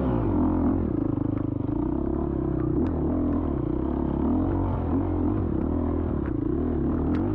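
Dirt bike engine heard from the onboard camera, revs rising and falling at low to middle speed as the bike picks its way along the trail, with a few short clicks and clatters from the bike over it.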